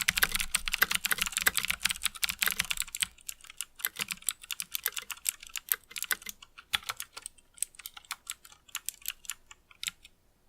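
Typing on a mechanical keyboard with Cherry MX Green clicky switches. Fast, dense keystroke clicks run for about three seconds, then slower, scattered keystrokes thin out and stop near the end.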